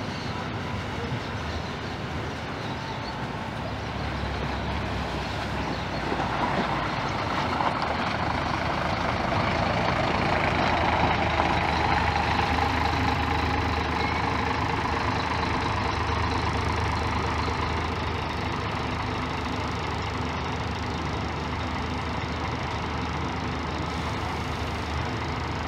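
Diesel engine of a Marcopolo intercity coach bus running at low speed as the bus drives past, with tyre noise on wet, puddled pavement. It grows loudest about ten to thirteen seconds in, then eases off as the bus moves away.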